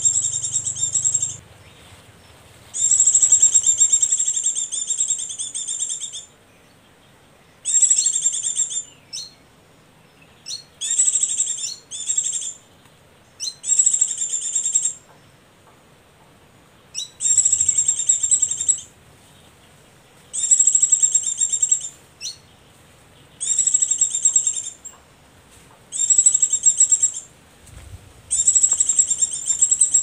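White-eye (pleci) call played as a lure for bird trapping: a high, rapid twittering phrase repeated over and over, each one to three seconds long with short gaps, about every three seconds.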